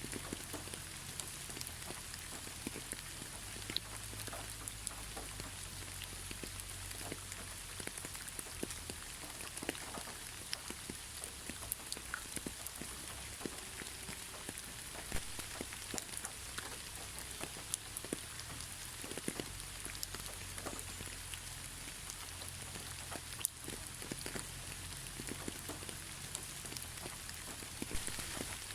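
Steady moderate rain without thunder: a continuous hiss with many single drops ticking sharply close by.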